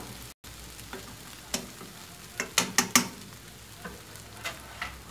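A metal fork stirring and scraping scrambled eggs in a nonstick frying pan, giving a run of sharp clicks and taps against the pan, bunched together around the middle, over a faint sizzle from the still-hot pan.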